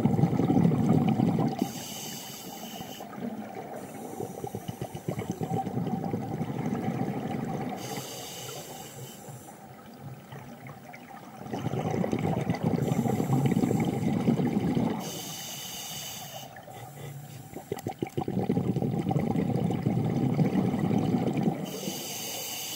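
Scuba diver breathing through a regulator underwater: short hissing inhalations alternate with longer rumbling bursts of exhaled bubbles, about four breaths, over a steady faint hum.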